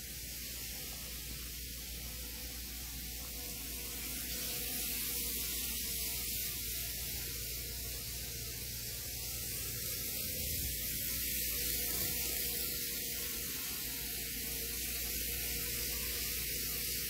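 Tomix N-scale 485-series model train running on its track: a steady whir from its small motor and wheels on the rails.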